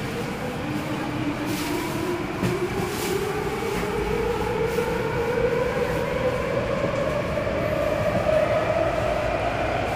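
MTR Ma On Shan Line C-Train heard from inside the carriage as it accelerates away from a station: the traction motors' whine rises steadily in pitch, with a few sharp clacks from the wheels on the track.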